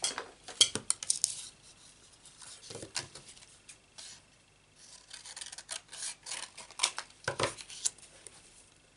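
Cardstock and plastic cutting plates being handled and set down on a craft mat: a run of short rubbing and scraping sounds with light clicks, loudest about a second in and again near the end.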